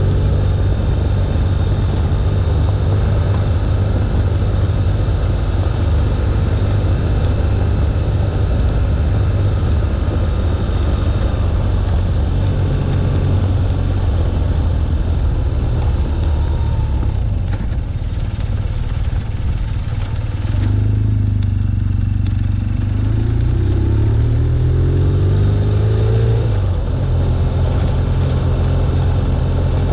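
A 2011 BMW R1200GS's air-cooled boxer twin running under way, picked up by a windshield-mounted action camera. It eases off about two-thirds of the way in, then rises steadily in pitch as the bike accelerates.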